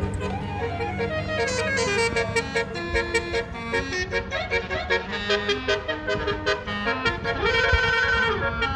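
Bus 'telolet' musical air horn playing a tune of quick, short notes that step up and down in pitch, with a longer held chord near the end, over a low vehicle rumble.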